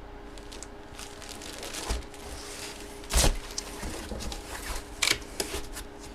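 Plastic packaging rustling and crinkling as it is handled, with irregular clicks and two sharper knocks, about three and five seconds in.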